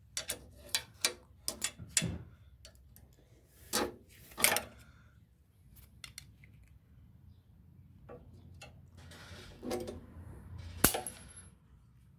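Hand tools and small metal parts clicking and clanking while parts are taken off a lawn mower. A quick run of clicks comes first, with two louder clanks around four seconds in and a rustling scrape near the end. A sharp metallic clank follows, with a brief ring.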